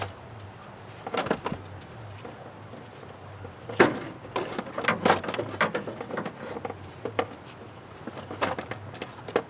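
Scattered clanks and knocks of hand tools and metal parts being handled during work on a truck's radiator, in three short clusters with the sharpest knock about four seconds in, over a low steady hum.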